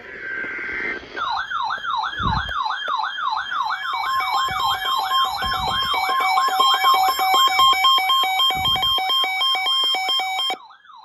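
Electronic wailing siren tone sweeping up and down about three times a second, with steady alert tones growing in beneath it. It is the attention sound of an emergency alert, and it cuts off suddenly about half a second before the end.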